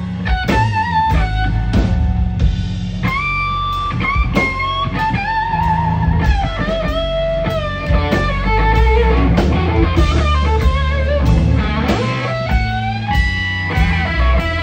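Live blues band: an electric guitar plays a lead solo of sustained single notes, bent and wavering in pitch, over electric bass and drums.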